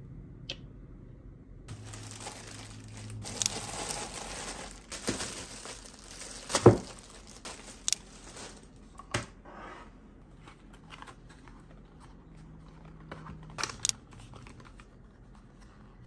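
Packaging crinkling and tearing as it is handled, with a few sharp knocks; the loudest knock comes near the middle, and there are two more near the end.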